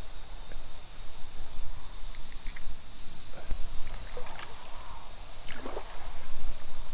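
A hooked bass splashing and swirling at the water's surface a few times as it is drawn to the bank, over a steady chirr of insects and a low rumble.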